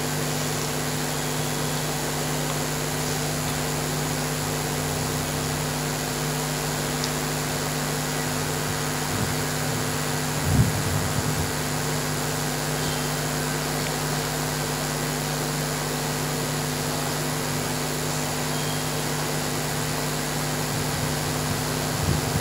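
Steady hiss and electrical hum from a live microphone and sound system, with a brief low thump about ten seconds in.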